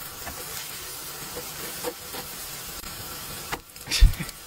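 Food frying in oil in a pan, a steady sizzle, with a loud thump about four seconds in.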